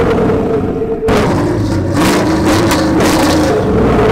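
A vehicle engine revving hard and held at high revs, its pitch stepping between two levels, with an abrupt break about a second in.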